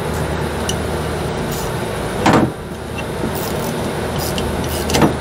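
Steady low hum of running machinery, with two short scraping clunks, about two seconds in and near the end, as the bolted metal end cover of an air-conditioning filter-drier shell is worked loose by hand.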